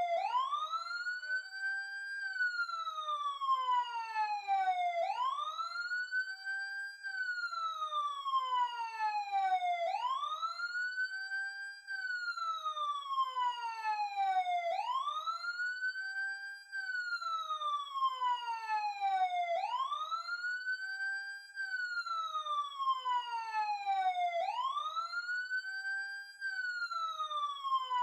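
Ambulance siren wailing: the tone rises quickly in pitch, then falls more slowly, repeating about every five seconds.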